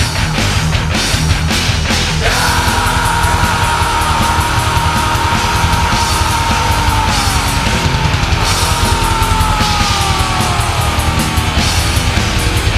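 Loud, fast heavy metal music with a driving beat. A long high held note comes in about two seconds in and slides downward in pitch around the middle and again near the end.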